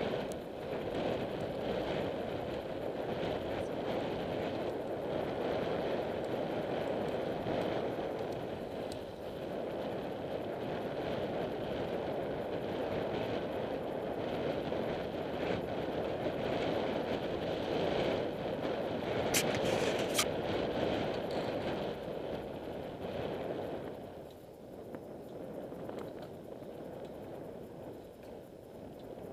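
Wind rushing over the microphone of a camera on a moving road bicycle, a steady noise mixed with tyre sound on tarmac, with two sharp clicks about two-thirds through. The rush eases off near the end as the bike slows.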